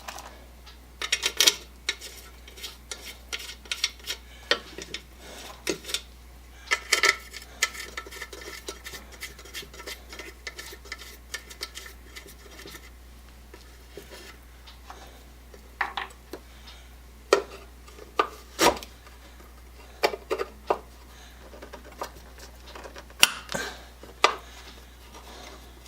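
Small stainless steel screws and metal parts clinking, tapping and scraping as they are handled, with scattered sharp clicks and a brief metallic ring about seven seconds in.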